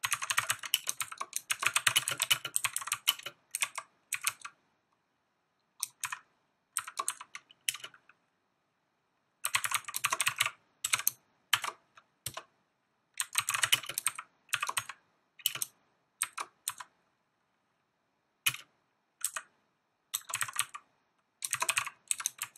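Typing on a computer keyboard: quick runs of keystrokes broken by several pauses of a second or more.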